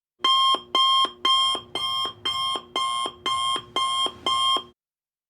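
Electronic alarm beeping: nine evenly spaced beeps, about two a second, that stop abruptly near the end.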